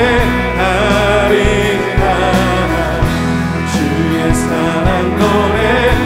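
Live contemporary worship band playing a praise song: acoustic guitars, keyboard and drums under singing voices.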